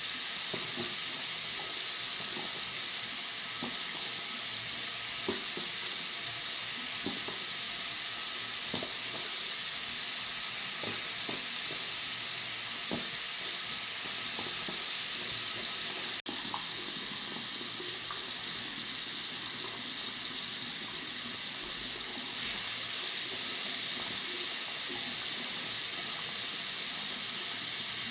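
Tap water running steadily into a bathroom sink: a continuous, bright rushing hiss with faint small splashes underneath. It drops out for a split second about sixteen seconds in.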